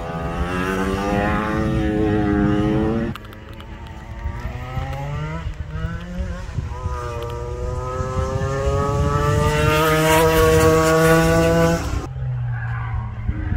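Racing engines of vehicles running a cone time-trial course, accelerating hard with pitch climbing steadily. One run cuts off abruptly about three seconds in and a second climbing engine follows; a steady lower engine note takes over near the end.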